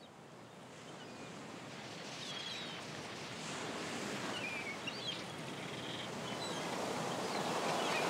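Coastal ambience: a steady wash of waves fading in and growing louder, with a few short, high bird calls over it.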